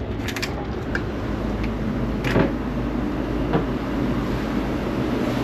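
Steady low rumble of a cruise ship underway in a heavy swell, with a few scattered knocks and clacks from fittings moving as the ship rolls.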